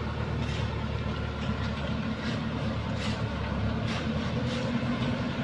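Small Cửu Long dump truck's engine running steadily. Short scrapes come about once a second from a shovel digging into loose gravel.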